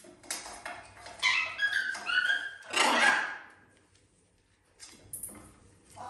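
Parrots squabbling over a toy: a run of short squawks about a second in, then one loud, harsh screech about three seconds in. Faint clicks follow near the end.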